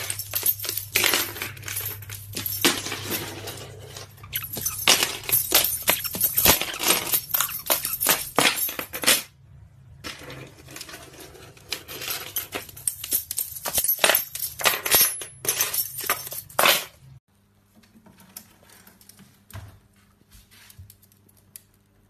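Rapid clinking and rattling of small hard objects knocked about on a hard floor by a pet caique, in quick irregular clusters. It stops suddenly about three-quarters of the way through, leaving only faint scattered ticks.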